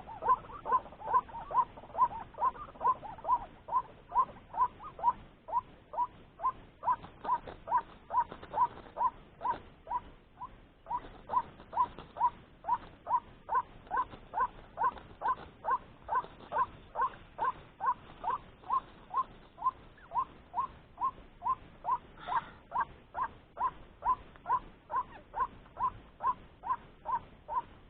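White-breasted waterhen (ruak-ruak) calling: one short 'kruak' note repeated evenly about twice a second, with a brief pause about ten seconds in.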